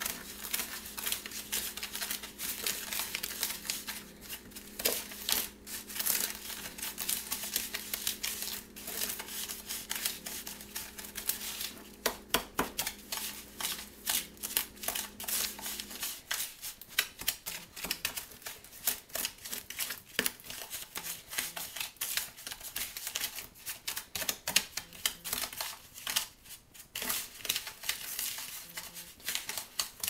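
Metal spoon stirring and scraping a damp, crumbly powder of borax, washing soda and Epsom salt with lemon juice in a plastic bowl: rapid, irregular scratching and clicking. The mix is still too dry to stick together. A low steady hum in the background stops about halfway through.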